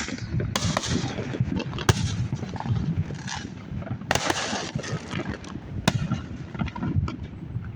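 Fireworks going off all around at many distances, like a war zone: a continuous crackle of small pops, broken by sharp louder bangs about half a second, two, four and six seconds in.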